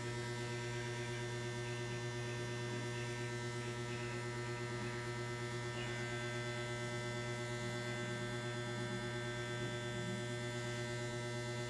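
Steady electrical mains hum with faint hiss from an electric guitar rig, amplifier and effects pedal, left idling with no strings played.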